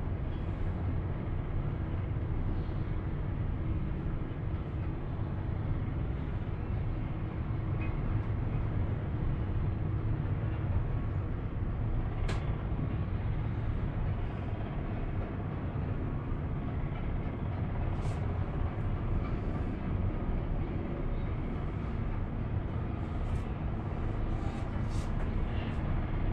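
Steady low rumble inside a moving cable car gondola, with a few faint clicks and creaks.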